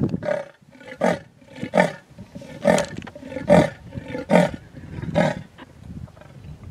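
Leopard giving its sawing territorial call: a series of about seven grunts, roughly one every 0.8 seconds, trailing off near the end.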